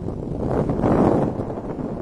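Wind buffeting the microphone: a low rushing noise that swells about a second in and then eases.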